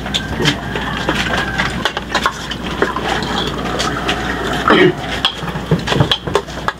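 Spoons and ladles clinking against steel pots, plates and bowls as food is served and eaten, in many short, irregular clinks.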